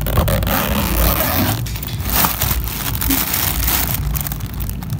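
A handbag's zipper being pulled open, then the plastic packing stuffed inside the bag crinkling and crackling under the hands.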